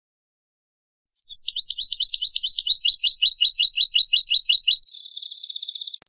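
European goldfinch singing. After about a second of silence comes a rapid string of sharp, high, falling notes, about six a second. Near the end it breaks into a fast buzzy trill.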